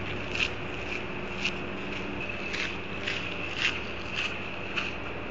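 Footsteps scuffing on gritty pavement: short scrapes, about two a second in the second half, over a steady low hum.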